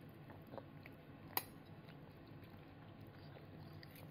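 A toddler's faint chewing and mouth sounds as he eats a forkful of soft hamburger steak, with one sharp click about a second and a half in.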